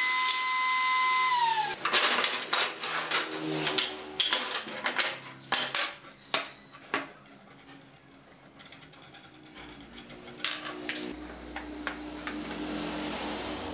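Router motor whining steadily, then winding down in pitch as it is switched off about two seconds in. A run of sharp clacks and knocks follows, from wooden pieces being handled and set down on a workbench, then fainter handling ticks.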